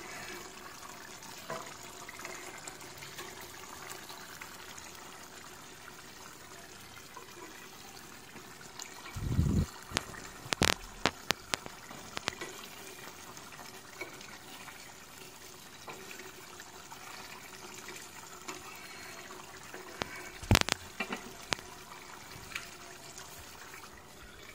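Chicken pieces cooking in gravy in a kadai, a steady bubbling simmer. A few sharp clicks and knocks come about ten seconds in and again near twenty seconds.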